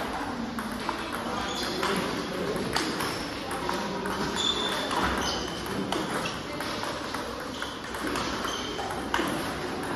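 Table tennis multi-ball drill: the clicks of balls being fed, struck by rackets and bouncing on the table come in quick succession, some with a short high ping.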